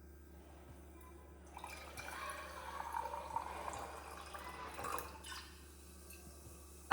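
Faint liquid trickling for a few seconds, with a few light clicks, over a low steady hum.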